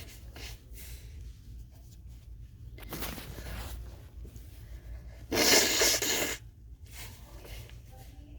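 Stifled sneezes during a sneezing fit: a quieter breathy burst about three seconds in, then the loudest, a held-in sneeze lasting about a second a little past five seconds.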